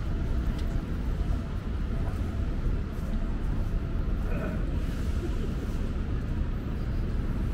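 City street ambience: a steady low rumble of traffic, with passers-by talking faintly.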